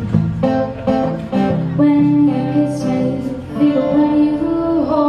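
A woman singing live, holding and bending notes, over her own acoustic guitar accompaniment.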